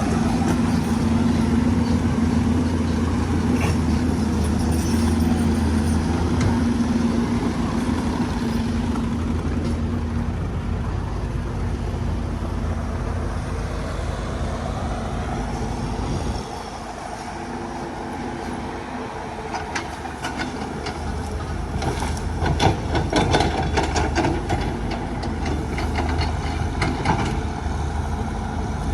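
Heavy diesel construction machinery running steadily. Its engine note drops suddenly a little past halfway, and a run of metallic clanks and knocks follows near the end.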